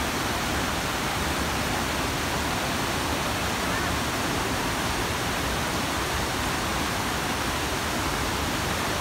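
Tall waterfall plunging into a pool, with shallow rapids rushing over rocks: a loud, steady rush of water.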